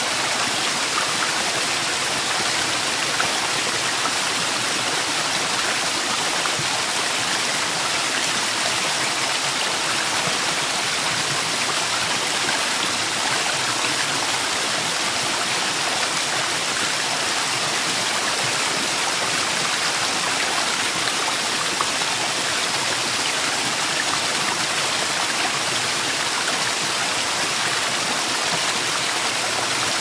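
Steady rushing and splashing of rainwater pouring over rock ledges as temporary waterfalls after a downpour.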